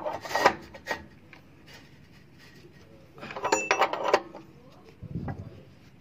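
Hands working on a water heater's heating element and wiring: scattered light metallic clicks and rattles about half a second in, a brief ringing clink around three and a half seconds in, and a duller knock near the end.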